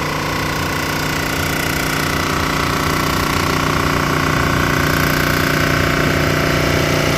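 Cylinder head surfacing machine running steadily, its cutter taking a pass of a couple of thousandths across the deck of a warped cylinder head. The sound grows slowly louder.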